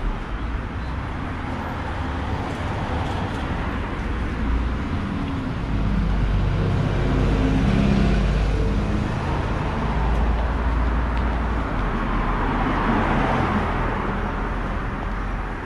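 Busy road traffic: a steady low rumble of engines and tyres, with vehicles passing close by and swelling loudest around the middle of the stretch.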